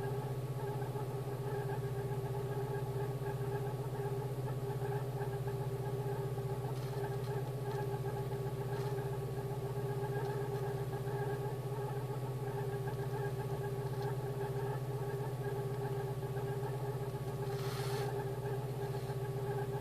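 VW Polo 86C's AAU 1.05-litre four-cylinder petrol engine running steadily at idle after its defective Hall sender was repaired. A short hiss near the end.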